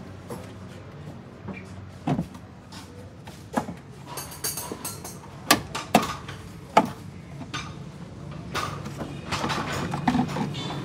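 Clicks and knocks of a plastic air filter housing on a Suzuki WagonR as its clips are undone and the cover is worked open, with a scraping rustle about four seconds in and more rustling near the end as the pleated paper filter element is pulled out.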